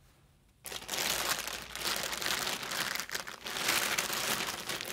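Clear plastic bag crinkling as a hand rummages among the yarn balls inside it. The crinkling starts suddenly just under a second in and goes on without a break.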